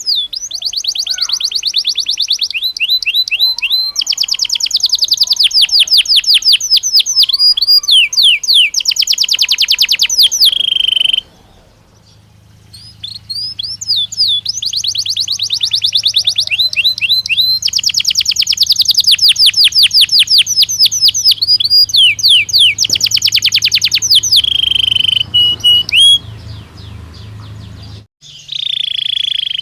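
Belgian canary singing long, rapid high-pitched trills and rolls in two extended phrases, with a short break about eleven seconds in. The song stops shortly before the end. A faint low hum runs underneath during the second phrase.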